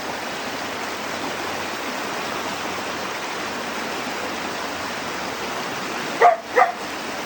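Mountain stream water rushing steadily over rocks. Near the end, two short pitched cries sound over the water.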